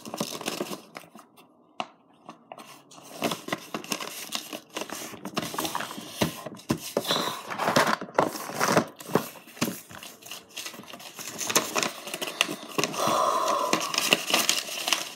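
Paper rustling and crinkling with irregular small clicks as a sheet of legal-pad paper and a paper envelope are folded and handled.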